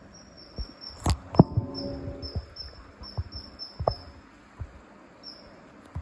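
Short high chirps repeated about three times a second, with a pause late on, under a series of knocks and clunks. The loudest knock, about one and a half seconds in, rings briefly.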